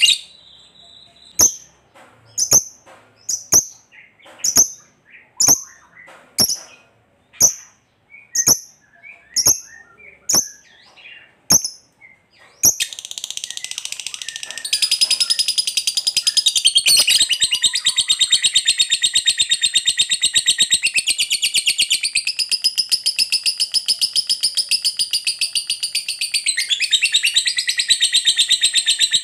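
Lovebird calling: a dozen or so sharp single chirps about once a second, then a switch into a continuous, very fast, high chattering trill that grows louder a couple of seconds in and keeps going. The trill is the long 'ngekek' song of a lovebird in full voice.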